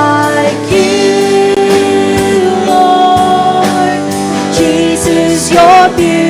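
Worship band playing a slow Christian worship song with sustained chords and a steady beat, with a singer's wavering, wordless vocal line rising over it near the end.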